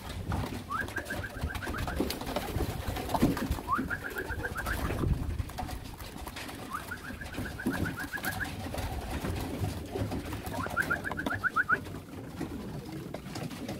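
Racing pigeons cooing. A short, rapid, high trill comes four times, about every three seconds.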